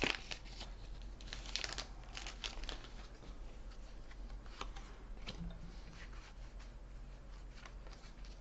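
Foil booster-pack wrapper crinkling and trading cards being slid out and handled, with faint scattered rustles and small clicks, busiest in the first two seconds.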